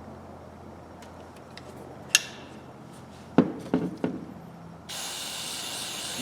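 A few sharp metal clicks and clinks from the pliers being handled, then about five seconds in the steady hiss of an aerosol spray can being sprayed.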